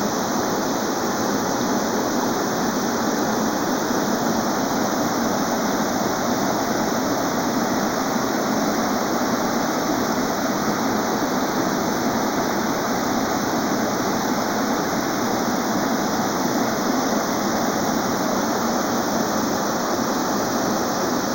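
Small river waterfall: water pouring and rushing in a steady, unbroken roar.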